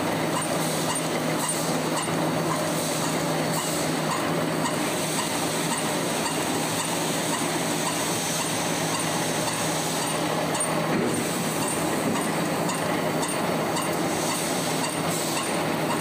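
Automatic welded wire mesh machine running: a steady mechanical clatter over a constant low hum, with faint high ticks recurring roughly once a second.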